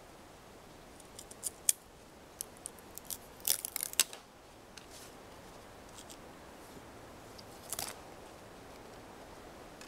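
Fallkniven A1 knife blade carving shavings off a dry wooden stick: a run of short, sharp scrapes and crackles over the first few seconds, then one more cut near the end.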